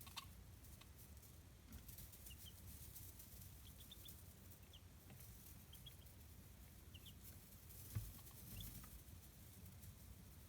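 Chicks peeping faintly and sparsely, short high chirps every second or so, over low hiss and light ticking. A soft thump about eight seconds in.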